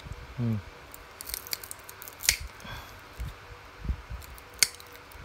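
Diagonal side cutters snipping through the copper magnet wire of a power-drill stator's old winding: a series of sharp snips and clicks, the loudest about two and a quarter seconds in and again near the end.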